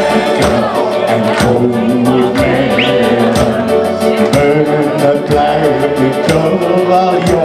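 A live band plays an upbeat carnival song, with drums keeping a steady beat and cymbals ticking, while a singer and backing voices sing along in Limburgish dialect.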